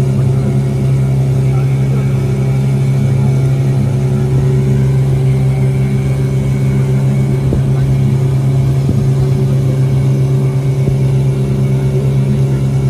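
A motor vehicle's engine running at a constant speed, a loud steady drone that does not rise or fall.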